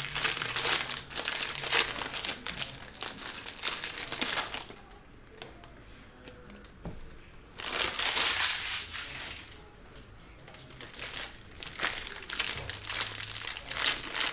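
Plastic pack wrappers of 2022 Bowman Draft Super Jumbo baseball card packs crinkling as they are handled and opened by hand. The crinkling comes in bursts, with two quieter pauses, one about five seconds in and a shorter one around ten seconds.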